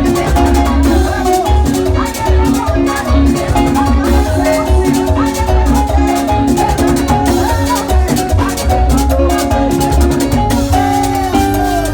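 Loud Latin dance music with a steady, driving beat and percussion.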